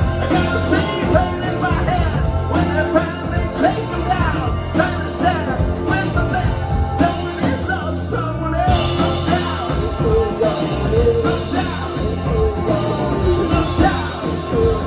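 Live band playing with lead vocals, drums, banjo and electric guitar.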